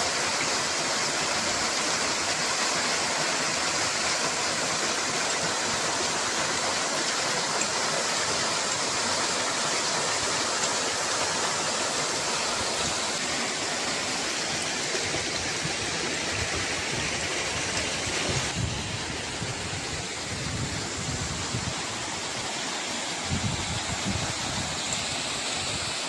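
Waterfall plunging into a rock pool: a steady rushing of falling water, easing slightly in the second half, with a few low rumbles near the end.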